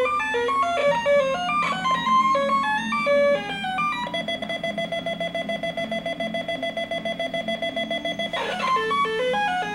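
Electronic bleeps from a 1979 Fisher-Price Alpha Probe toy space shuttle: a stepping melody of beeping notes, then about four seconds in a fast-pulsing alarm-like tone for about four seconds, a brief rushing noise, and the bleeping melody again, over a steady low hum.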